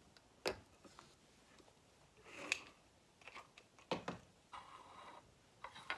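Handling noises of small objects being picked up and set down on wooden furniture: a few separate knocks and clatters, the sharpest about two and a half and four seconds in, with a short scrape after the second.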